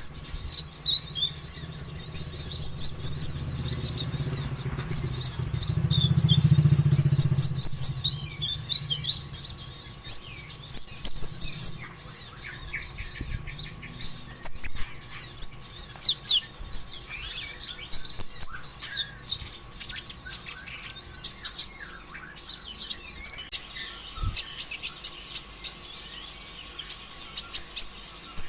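A kolibri ninja sunbird singing nonstop: rapid high chirps and sweeping notes strung together with quick rattling trills. A low rumble swells and fades during the first eight seconds or so.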